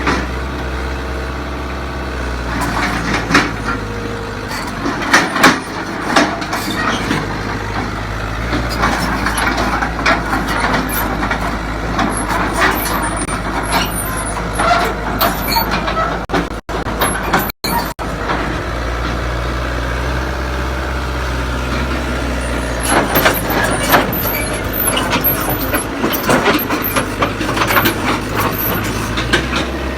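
Excavator's diesel engine running steadily under load, with frequent metal clanks and knocks as the machine is loaded onto a transporter. The sound drops out twice, very briefly, a little past halfway.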